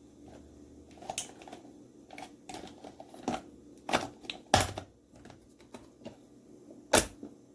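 Irregular sharp plastic clicks and knocks, about a dozen, from handling a Chefman single-serve coffee maker as it is readied to brew. The loudest knocks come about halfway through and near the end.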